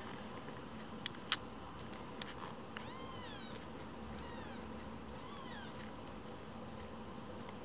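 Very young kitten mewing: three thin, high-pitched mews, the first arching up and down about three seconds in, the next two shorter and falling. Two sharp clicks a little after a second in are the loudest sounds.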